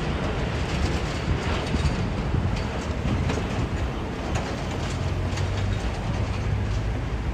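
Steady low rumble of a British Airways Boeing 777's jet engines as the airliner touches down and rolls out along the runway.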